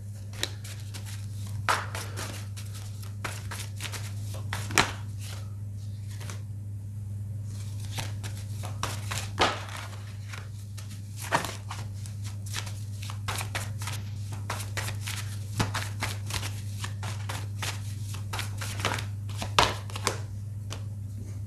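Tarot cards being shuffled and handled off-camera: irregular soft riffles, flicks and taps, a few sharper clicks standing out, over a steady low electrical hum.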